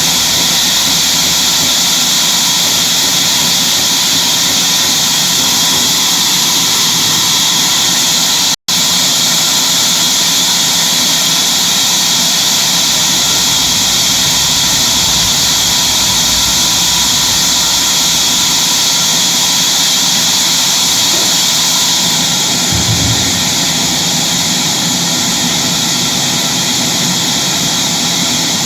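Sawmill saw running continuously with a loud, steady high-pitched hiss and hum, cut by a split-second break about nine seconds in.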